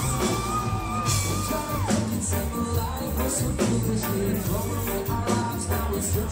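Reggae rock band playing live: electric guitars, bass, drums and keyboards with lead vocals over a steady bass-and-drum groove. A long high note is held near the start and falls away about two seconds in.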